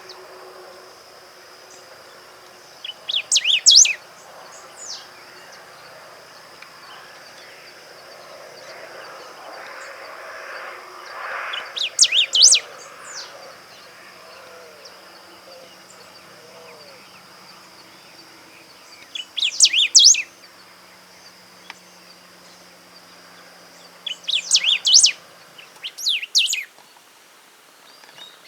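Golden-billed saltator singing: five short phrases of quick, high, varied notes, each about a second long and spaced several seconds apart.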